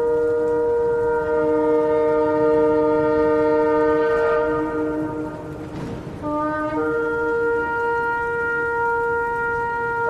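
Shofar sounding long held blasts. The first blast fades out about five seconds in, and after a brief dip another long blast begins.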